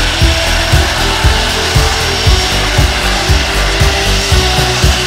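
Background music with a steady beat, about two beats a second, over held synth notes.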